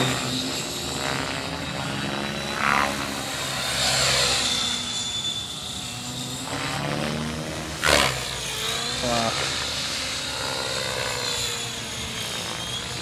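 Electric 3D RC helicopter in flight: a steady rotor whir and high motor whine that rise and fall in pitch as it manoeuvres, with a few short loud rushes of noise.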